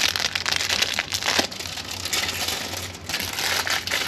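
Product packaging crinkling and rustling as it is handled, with many small crackles and a short lull about three seconds in.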